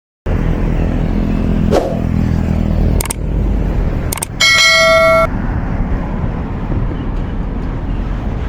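Tour bus's roof-mounted basuri telolet horn sounds one short, steady blast about four and a half seconds in. Underneath are a running bus engine, traffic noise and a few sharp clicks.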